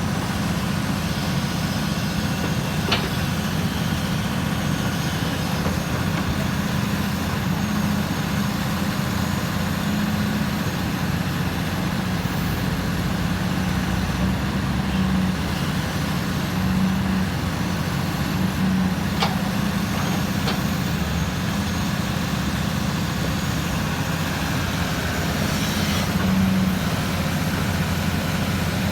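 Hydraulic excavator's diesel engine running steadily under work, with a few short sharp clicks or knocks.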